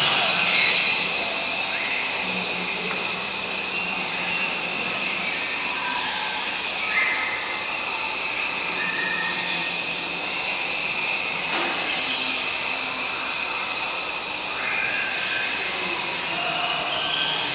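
A steady, airy hiss with no clear source of its own, much like air rushing from a blower or vent.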